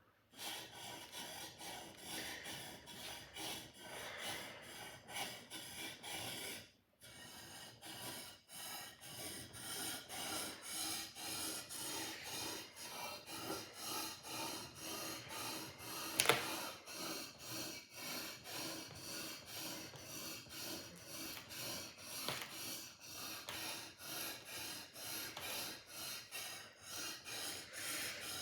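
A sword blade being sharpened: steady back-and-forth scraping strokes, about two a second, with a short pause about seven seconds in and one sharper, brighter scrape about sixteen seconds in.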